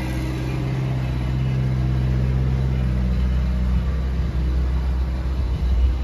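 A motor running steadily with a low, even hum that shifts slightly in pitch about four seconds in.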